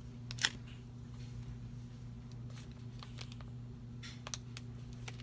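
A plastic gift card scraping and tapping against washi tape on a planner page, trimming the tape: one sharp scrape about half a second in, then a few faint light ticks. A steady low hum sits underneath.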